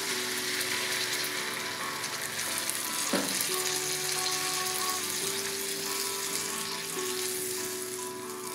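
Dried fish and potatoes sizzling steadily in hot oil in a pan during a bhuna, with a single knock about three seconds in. Soft background music plays underneath.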